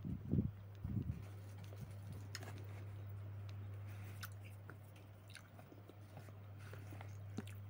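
A person chewing very sour citrus fruit, with two louder chews in the first second or so and then soft scattered mouth clicks, over a steady low hum.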